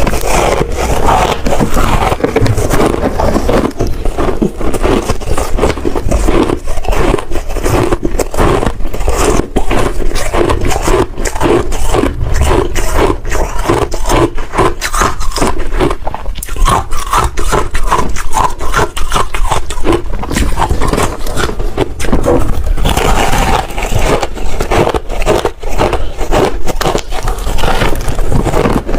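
Close-miked chewing of hard shaved ice: a dense, unbroken run of crunches, many a second.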